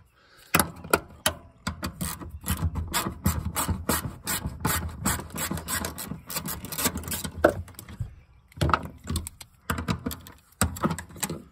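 Hand ratchet clicking in quick runs as the bolts holding the fuel pump assembly into the fuel tank are backed out, with metal-on-metal rasping; the clicking is nearly continuous, stops briefly after about seven and a half seconds, then comes back in two short bursts.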